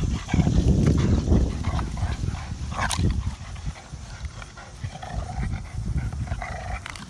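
Several bully-breed dogs in a tug of war over a rubber toy, breathing hard and scuffling as they pull and shake it. The sound is loudest in the first three seconds, with one sharp click near the three-second mark, then grows quieter.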